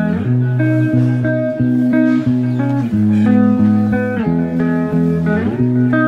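Instrumental background music led by guitar, with plucked notes changing over a steady low bass line.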